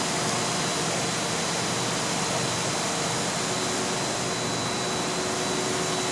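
Steady rushing of rooftop condenser fans and refrigeration plant running, with a faint high whine held throughout.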